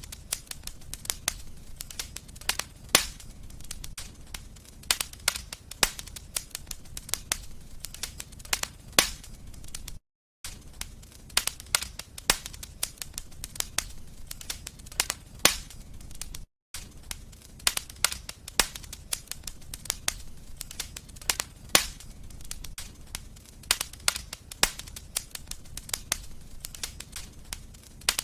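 Wood fire crackling in a fireplace: many sharp, irregular pops and snaps over a low rumble of burning. The sound cuts out completely twice for a fraction of a second, about ten seconds in and again about sixteen seconds in.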